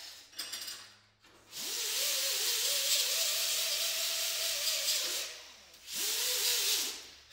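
Hand-held pneumatic tool on an air hose running in two bursts: a hiss of air with a whine that rises as the air motor spins up and then holds for about four seconds. A second, shorter burst follows about a second later.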